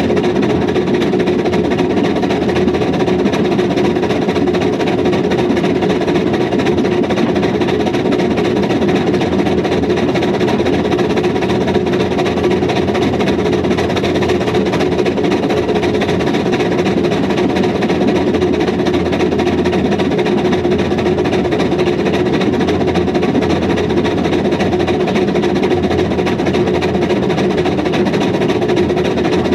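Hunslet steam locomotive running along the line, heard close to its chimney: a steady, rapid run of exhaust beats and clatter.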